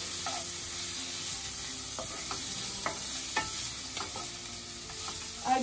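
Sliced onion, capsicum and carrot sizzling steadily in butter in a nonstick kadai as a wooden spatula stirs them, with a few short knocks and scrapes of the spatula against the pan partway through.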